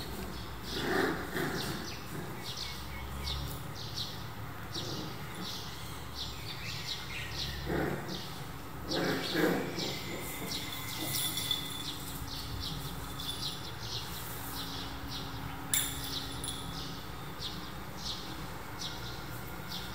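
A bird chirping steadily in the background, about three short high chirps a second. There are two brief louder, lower sounds about a second in and about nine seconds in, and a single sharp click near the end.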